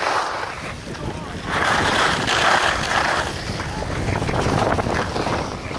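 Skis sliding and scraping over packed snow on a downhill run, with wind buffeting the microphone. The scraping swells for a second and a half or so in the middle, as in a turn.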